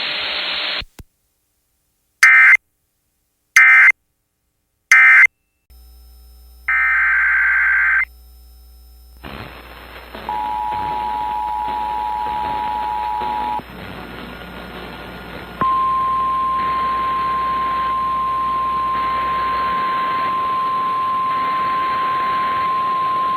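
Emergency Alert System data bursts: three short digital screeches, then a longer burst about seven seconds in. Then, over radio hiss, the EAS two-tone attention signal sounds for about three seconds, followed by the steady single NOAA Weather Radio 1050 Hz warning alarm tone, with faint data bursts beneath it.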